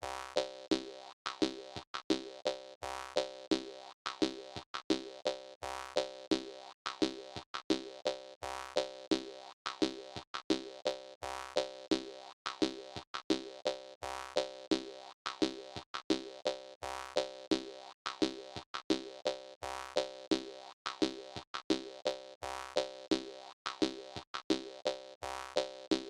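Jaw harp music: steady, rhythmic twanging plucks, about two a second, in a danceable groove.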